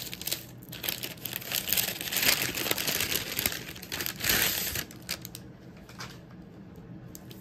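Wrapping crinkling and rustling as a packaged item is unwrapped by hand. It is loudest about two and four seconds in and dies down after about five seconds.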